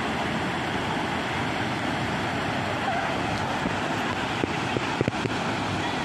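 Steady rush and roar of a waterfall plunging into its pool in heavy flow a day after a typhoon. A few brief knocks come about five seconds in.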